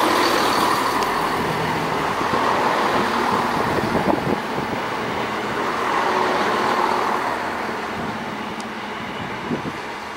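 Diesel multiple unit, a Class 153 coupled to a Class 170, pulling out of the platform: engine and wheel-on-rail noise, steady at first, then fading from about seven seconds in as the train draws away.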